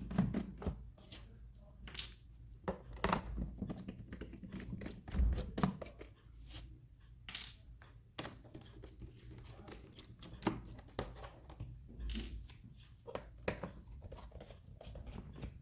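Scattered small clicks, ticks and a few soft knocks from unscrewing and handling the housing of a TOMLOV DM602 digital microscope, as the four screws holding it together are taken out.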